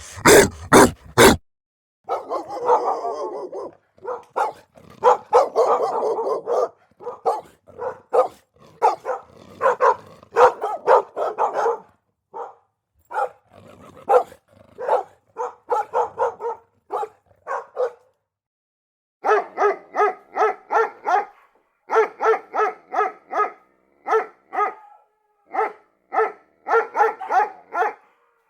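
Dogs of different sizes and voices barking in a series of separate recordings: a few very loud sharp barks at the start, then dense overlapping barking, then sparser single barks, and, after a short pause about two-thirds of the way in, rapid runs of barks in quick succession.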